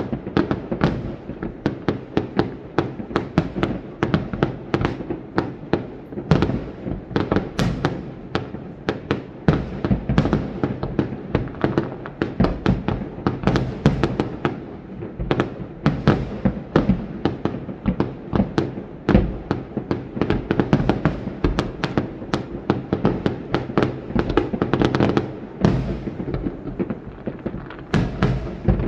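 Aerial fireworks bursting in a dense, continuous barrage, many sharp bangs and crackles every second.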